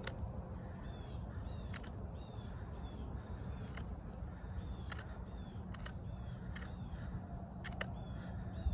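D2 steel fixed-blade bushcraft knife carving a wooden stake, its strokes giving short sharp clicks every second or so, over a steady low rumble. Birds call repeatedly in the background with short chirps.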